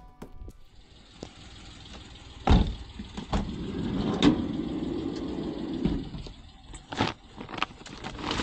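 Vehicle doors thudding shut three times, with a steady low hum of a vehicle running between the first two thuds.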